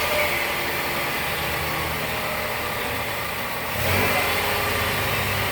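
2015 Nissan NV200's four-cylinder engine running steadily in gear, surging louder about four seconds in as it is accelerated again.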